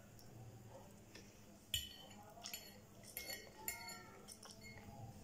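Metal fork clinking and scraping against a ceramic plate: about four sharp clinks, the loudest a little under two seconds in. Faint mouth sounds of eating noodles come in between.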